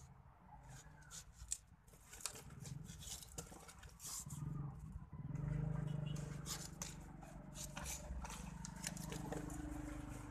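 A kitchen knife cutting and handling a bunch of green bananas: short clicks, snips and scrapes. A low steady hum comes in underneath about four seconds in.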